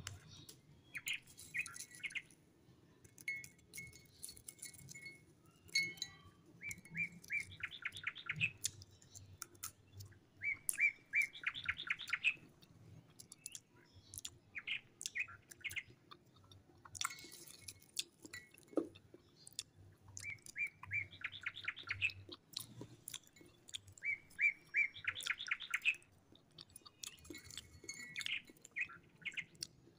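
A bird singing nearby: a rapid trill of quick, evenly spaced notes, repeated about four times and each lasting a second or two, between shorter chirps. Light clicks and crinkles from snack wrappers and a glass bowl being handled.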